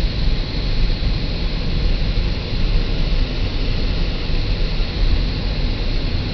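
A car driving at highway speed, heard from inside the cabin: steady road and wind noise with a strong low rumble.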